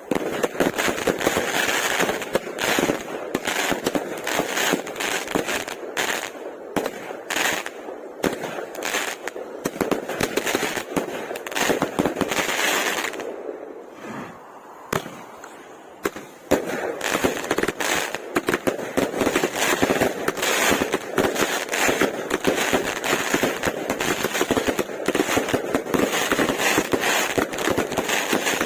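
Consumer fireworks going off: a dense, continuous run of sharp crackling pops and bangs that eases for a few seconds about halfway through, then picks up again.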